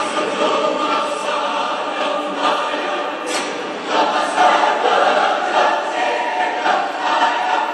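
Choir singing a song, voices continuous throughout.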